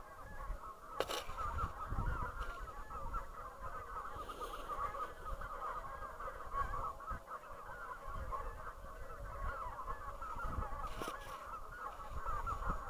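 A large flock of wild geese honking together: a dense, unbroken chorus of overlapping calls, with a few low knocks here and there.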